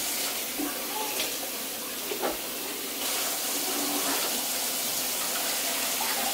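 Kitchen tap running into a stainless steel sink as a steady hiss of water, growing louder about three seconds in.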